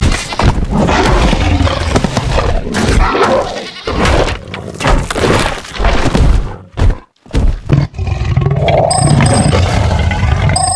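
Sound-effect roars and snarls of a computer-animated sabre-toothed cat, repeated loud cries with a short break about seven seconds in.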